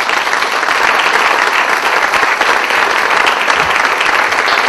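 Audience applauding, a steady dense clapping of many hands that builds up just before and holds through.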